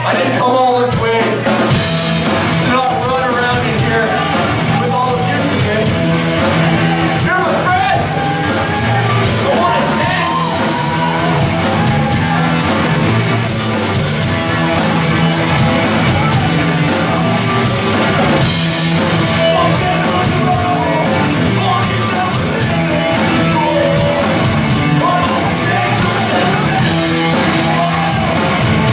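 Punk rock band playing live: electric guitars, bass and drums, with a vocalist singing over them.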